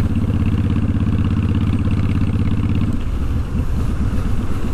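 Honda VTX1300's V-twin engine running under way, heard from the saddle. It holds a steady note, then drops to a lower, less even note about three seconds in.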